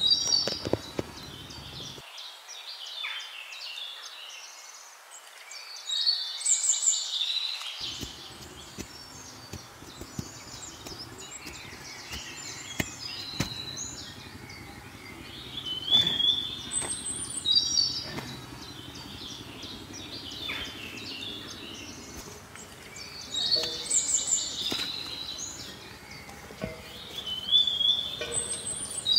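Birds singing, short whistled phrases recurring every few seconds, with scattered short knocks underneath.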